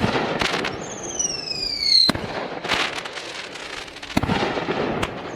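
Fireworks going off: a bang at the start, then a falling whistle that ends in a sharp bang about two seconds in, followed by crackling and two more bangs near the end.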